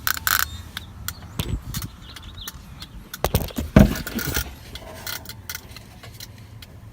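Worn turn-signal flasher relay in a 1999 Pontiac Grand Prix clicking irregularly as it is tapped and pressed, with a few dull knocks from the taps a second and a half in and again about halfway through. The uneven clicking is the sign of a flasher relay worn out inside, which only works now and then.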